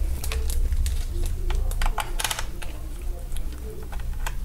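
Irregular light clicks and taps from hands handling small parts of an opened laptop on a workbench, about to take out its hard drive. A steady low hum runs beneath them.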